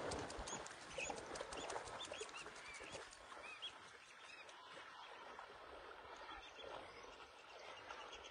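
Small birds chirping with short, repeated calls over a soft wash of noise that fades during the first few seconds.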